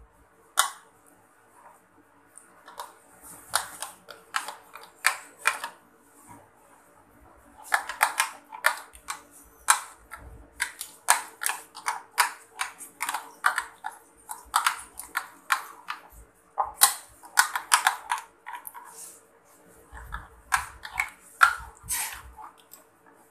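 Metal spoon stirring a thick spice paste in a ceramic bowl, clinking and scraping against the bowl in quick runs with short pauses between them.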